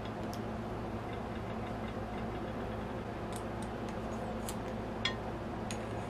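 Small clicks and ticks of a metal compact LED flashlight being put together by hand, its battery carrier fitted into the body and the end cap twisted on, with one sharper click about five seconds in. A steady low hum underneath.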